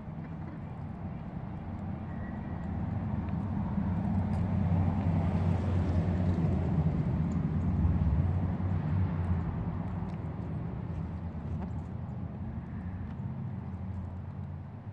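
A passing motor vehicle's engine: a low rumble that swells to its loudest about halfway through and then slowly fades away.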